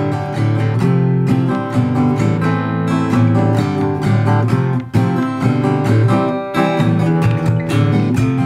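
Steel-string acoustic guitar strung with super-light D'Addario EZ890 strings, played in a run of strummed and picked chords with a short break a little under five seconds in. The bass is much reduced next to the heavier EZ900 set, because of the thinner string gauges.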